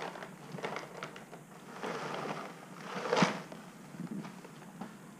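A cardboard cereal box handled and turned onto its side: light knocks and rustling as the flakes shift in the sealed pouch inside, loudest a little after three seconds in.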